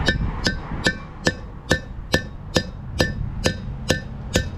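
Hammer striking a long steel punch to drive a wheel bearing race out of a truck's front hub: a steady series of ringing metallic taps, about two and a half a second.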